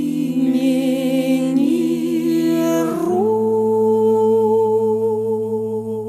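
Music: the closing bars of a devotional song, with held, wordless sung notes over sustained accompaniment, settling about halfway through onto one long final chord.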